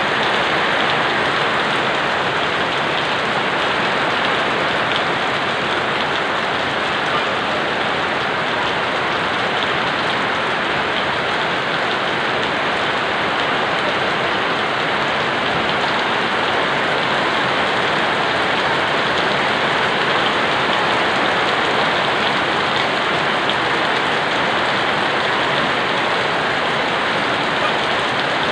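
Very heavy rain pouring down steadily onto a concrete yard, an even, loud hiss of rain that neither builds nor eases.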